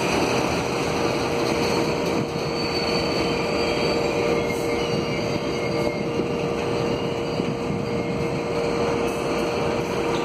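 Freight train of covered hopper cars rolling slowly past on the track: a steady rumble of wheels on rail, with a constant tone running underneath.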